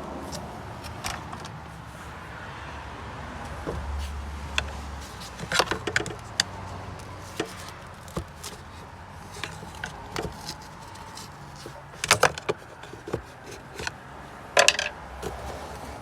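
Hand tools and metal parts clinking and knocking as they are handled during engine work, in scattered clicks with small clusters about five seconds in, around twelve seconds and again near the end, over a low steady hum.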